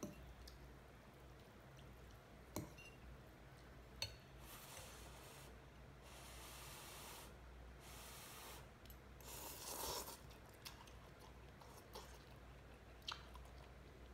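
Faint eating sounds: a metal fork and spoon clinking a few times against a ceramic bowl, between stretches of blowing on and slurping noodles.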